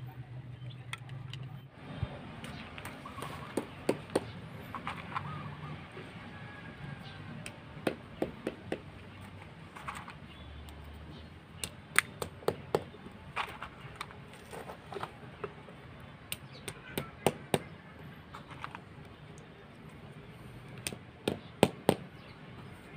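Scattered sharp taps and clicks, often several in quick succession with pauses between, from metal tile trim being handled and pressed into place along a tiled step edge.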